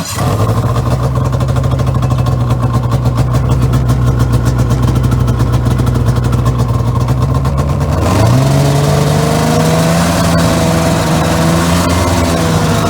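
2000 Arctic Cat Pantera 580 snowmobile's two-stroke twin engine catching abruptly and running steadily. About eight seconds in it revs up a little and holds the higher speed.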